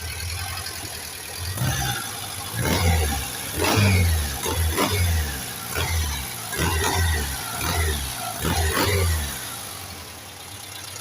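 Classic Volkswagen engine built with a 74 crankshaft, 100 camshaft and 90 pistons, idling and then revved in a string of quick throttle blips, each rising and falling in pitch. The blips run from about a second and a half in until near the end, when it drops back to idle.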